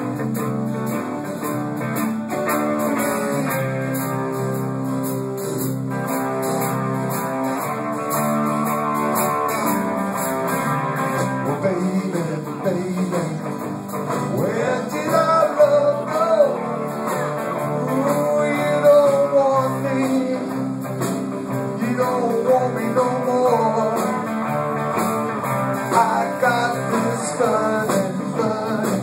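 Live band playing a blues-rock song on acoustic and electric guitars, bass and drums, with a voice singing over it from about halfway through.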